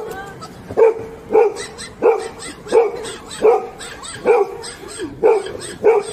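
A dog barking repeatedly in short, evenly spaced barks, about one and a half a second.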